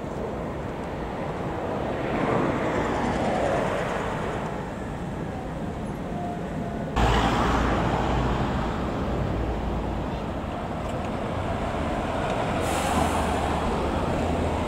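Vehicle traffic passing, the noise swelling and fading as vehicles go by; about seven seconds in the sound changes suddenly to a heavier low rumble.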